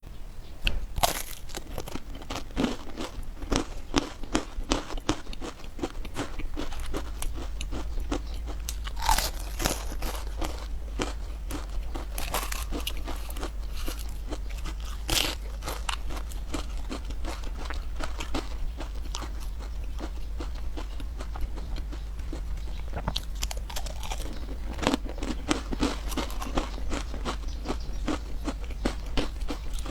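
A person biting and chewing food close to the microphone, with many short crunching bites and wet chewing sounds throughout, over a steady low hum.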